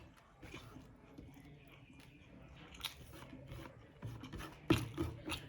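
A person chewing food up close, with scattered small clicks and a louder knock near the end.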